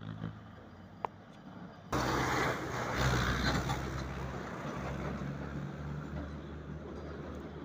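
A road vehicle's engine running close by, coming in suddenly about two seconds in with a low steady drone and slowly fading away. A single sharp click about a second in.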